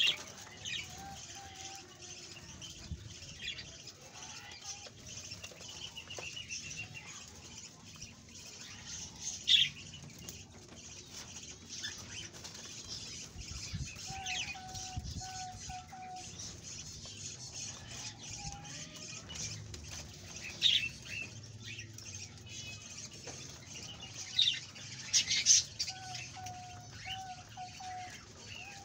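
Rabbits chewing and rustling dry corn husks, a faint crackle of small crunches. Birds call over it: a short note repeated three or four times in a row, recurring every ten seconds or so, and a few sharp, louder high chirps.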